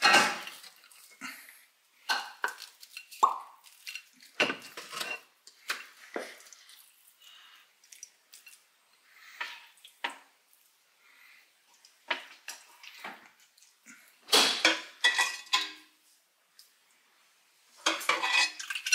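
Kitchen utensils and cookware clinking and scraping as food is plated: a wooden spoon working mashed potatoes in a metal pot, tongs and a stoneware plate knocking, in scattered short clatters with a busier run of clinks about two thirds of the way through.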